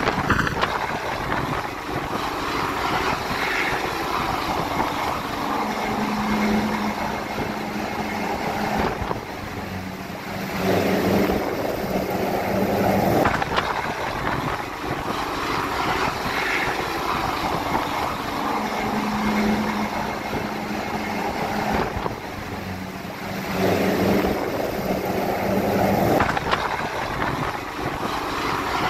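Rescue helicopter hovering close by: a steady drone of rotor and engines that swells louder twice.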